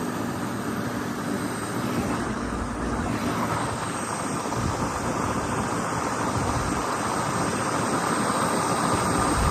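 Sonalika 60 RX tractor's diesel engine running steadily as it drives on the road, with a constant drone and an even rush of road and wind noise.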